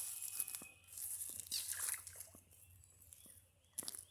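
Footsteps crunching through dry leaf litter and brush, in irregular patches with small snaps and clicks.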